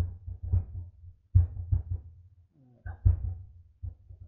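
Irregular dull knocks of a computer keyboard and mouse being used, about seven strokes spaced unevenly.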